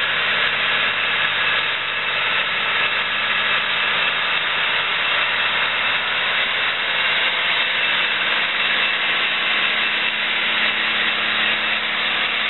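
A John Deere four-wheel-drive tractor's 360 hp diesel engine running steadily under heavy load as it pulls a 33-yard K-Tec scraper filling with dirt, the engine straining because the scraper is too much for it.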